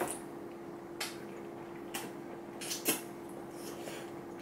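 Eating a seafood boil: a few short, sharp clicks and taps about a second apart, as shells and food are handled and bitten, over a steady low hum.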